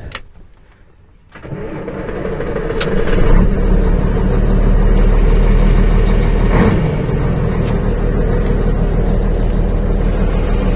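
Scania 111 truck's six-cylinder diesel engine cranked and started about a second in. It rises in loudness over the next two seconds, then settles into a steady idle, heard from inside the cab.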